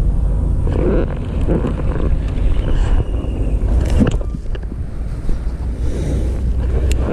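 Wind buffeting the microphone: a steady low rumble, with a few faint rustles and a couple of sharp clicks, one about four seconds in and one near the end.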